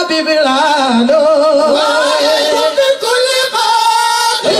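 Singing with long, wavering held notes and no clear beat.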